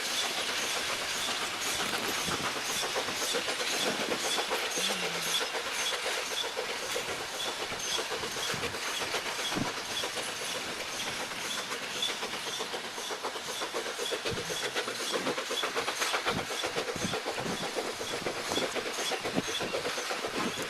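Narrow-gauge forest railway train hauled by a C2 steam locomotive, running steadily, with its wheels clicking evenly over the rail joints about twice a second against a constant rumble and light hiss.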